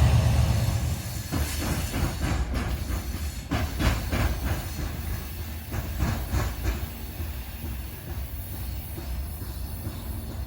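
Norfolk Southern train rolling past. Its wheels click over the rail joints in uneven clusters while the low rumble fades away.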